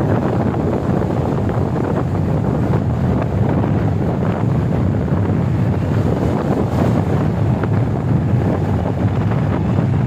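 Strong wind blowing hard across the microphone: a steady, loud rushing rumble.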